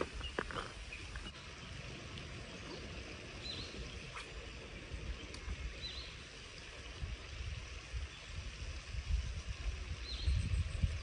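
Outdoor ambience with a low wind rumble on the microphone, louder near the end, and a bird giving a short high chirp three times.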